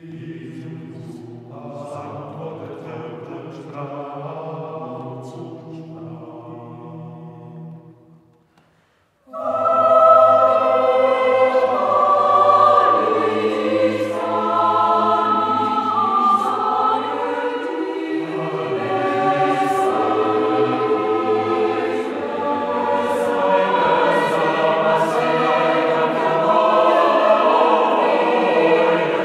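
A choir singing. A quieter passage runs for about eight seconds and breaks off briefly; then the full choir comes in louder.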